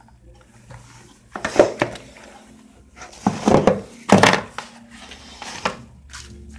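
Cardboard phone box and accessories being handled and set down on a table: a few short knocks and rustles.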